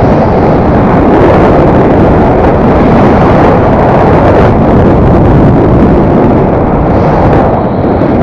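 Loud, steady wind rush over the camera microphone of a paraglider in flight, the airflow buffeting the mic.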